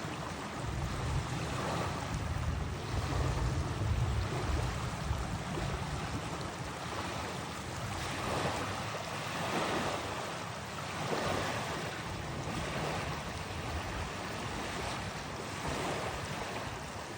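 Lake water lapping in repeated washes, with wind rumbling on the microphone, strongest in the first few seconds.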